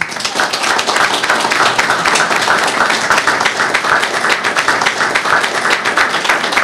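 Audience applauding: many people clapping steadily, starting suddenly at the end of a speech.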